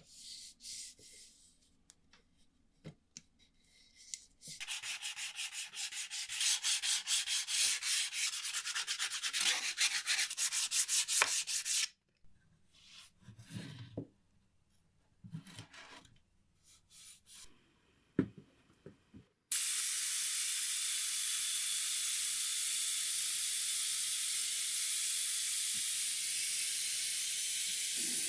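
Sandpaper rubbed back and forth over the clock's wooden case in rapid, even strokes, with scattered shorter rubs after. About two-thirds of the way in, a loud, steady hiss starts abruptly and keeps going.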